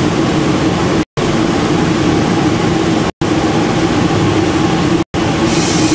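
CNC wood-turning lathe running without cutting, a loud steady machine hum. The sound cuts out abruptly to silence three times, about one, three and five seconds in, each only briefly.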